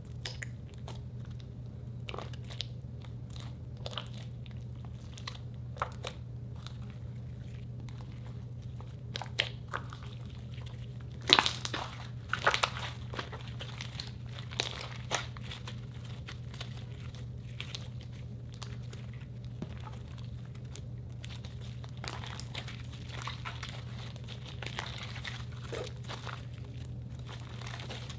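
Hands kneading, pressing and stretching glossy slime mixed with glitter slime: irregular squishy clicks, pops and crackles, with a louder cluster of pops about eleven to thirteen seconds in, over a faint steady low hum.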